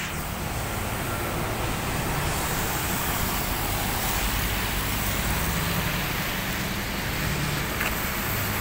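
Road traffic passing close by on a wet road: steady tyre hiss on wet tarmac with the engine sound of passing vehicles.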